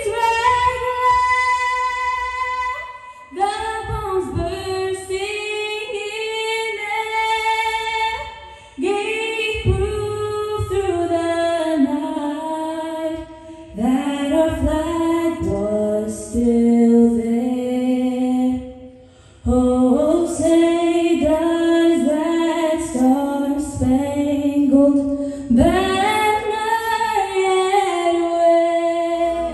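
A choir of girls singing an anthem unaccompanied, in long held phrases with brief pauses between them.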